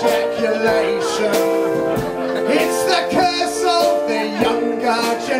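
A man singing a cabaret song into a microphone, accompanied by an electric keyboard playing sustained chords.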